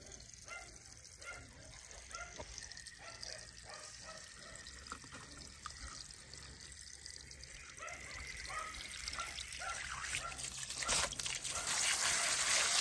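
Water trickling and dripping faintly, with scattered small drips. It grows louder, and near the end becomes a steady hiss of water spraying and splashing over a muddy toy car.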